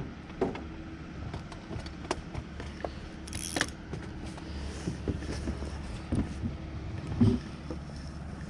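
Jet boat's motor idling steadily, with scattered clicks and knocks of gear in the boat and a brief hiss about three and a half seconds in.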